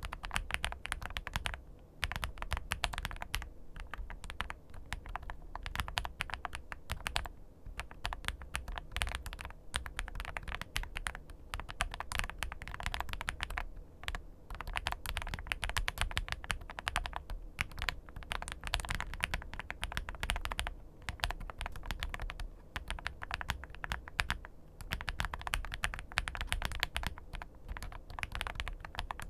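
WEIKAV RECORD Alice V2 Alice-layout mechanical keyboard with HMX Violet switches and XVX double-shot PBT keycaps being typed on, a fast run of key clacks with a few brief pauses.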